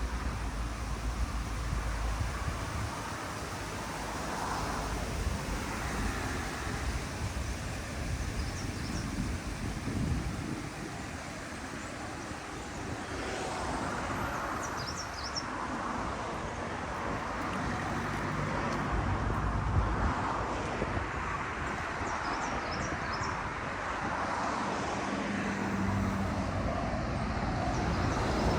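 Steady outdoor rumble of road traffic, with a few faint, short, high chirps, growing a little louder toward the end.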